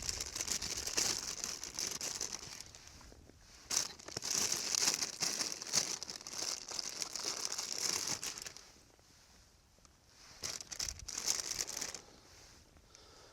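Plastic food packaging crinkling and rustling as it is handled and opened, in three spells with short quiet gaps between them.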